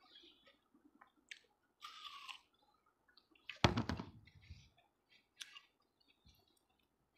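Watermelon being bitten and chewed close to the microphone, in short scattered bursts. One loud knock comes about three and a half seconds in.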